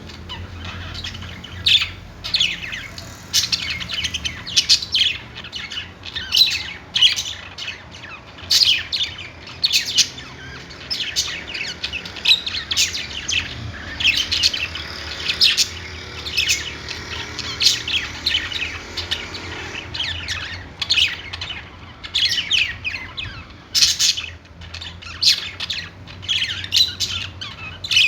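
Several budgerigars chirping and chattering, with many short, sharp calls overlapping over a faint steady low hum.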